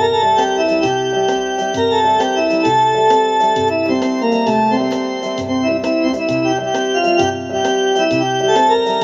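Instrumental background music: an electronic keyboard melody over a steady bass beat with light percussion.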